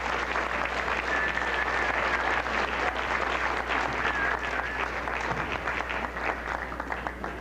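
Audience applauding steadily, a dense patter of many hands, with two brief high wavering calls rising over it; the applause thins out near the end.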